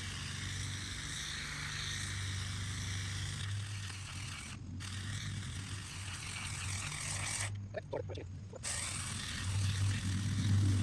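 A small engine running steadily with a low hum, broken off abruptly by several cuts.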